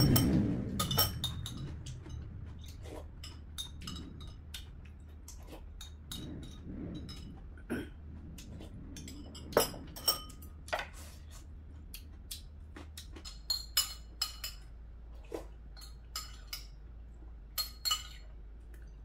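Metal chopsticks and spoon clinking and scraping against ceramic bowls and plates while eating, in many short, irregular clinks, some with a brief ring. A dull knock at the very start.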